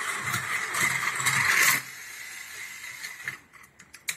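Battery-powered toy train's motor and gears running on plastic track: a steady high whine with rattling that drops off sharply about two seconds in. A fainter whine lingers briefly, then a few sharp plastic clicks come near the end.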